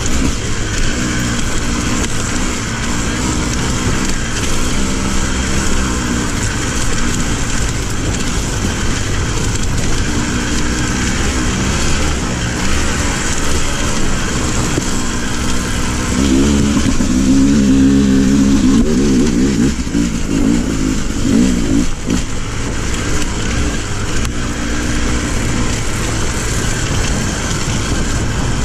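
Off-road motorcycle engine running as the bike is ridden along a rough dirt trail, its note rising and falling with the throttle, with a louder spell of revving a little past halfway. A steady rush of wind and trail noise on the microphone lies under it throughout.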